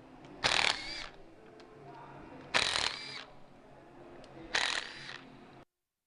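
Cordless power ratchet spinning out bolts in three short whirring bursts about two seconds apart, as parts come off an engine being torn down. The sound cuts off abruptly near the end.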